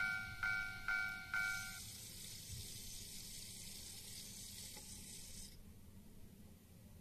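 Japanese railway level-crossing warning bell ringing its repeated ding, about two strikes a second, stopping about two seconds in. An even hiss follows.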